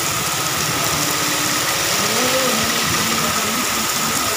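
Heavy rain falling steadily on a road and parked vehicles, with a motor vehicle engine running underneath.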